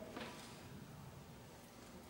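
Very quiet room tone in a pause between spoken lines, with one faint brief sound just after the start.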